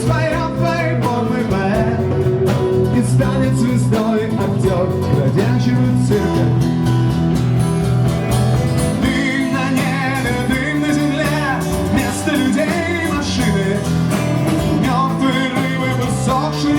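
Rock band playing an instrumental passage with electric guitar and bass, a wavering lead melody carrying over the accompaniment.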